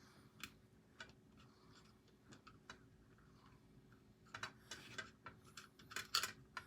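Faint, irregular small clicks and taps of hard plastic parts being handled and screwed together, coming thicker in the last couple of seconds.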